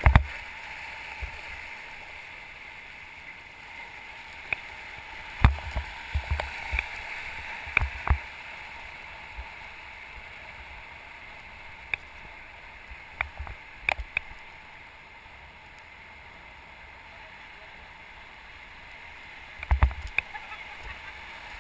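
River water rushing steadily around a raft in a rapid, with scattered sharp knocks and thumps, the loudest about five seconds in and again near the end.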